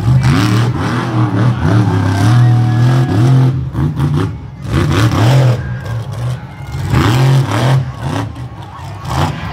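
Monster truck engine revving hard in repeated surges, rising and falling and easing off briefly a few times.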